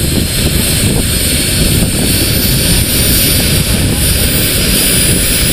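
Model gas-turbine engine (Jakadofsky) of a giant-scale R/C Lama helicopter running: a loud, steady rush of exhaust with a high turbine whistle that climbs slowly in pitch as the turbine spools up.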